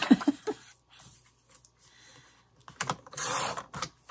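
Fiskars paper trimmer being handled, with a few plastic clicks and knocks. About three seconds in, a short rasp as the sliding blade carriage is drawn through the paper, then another click.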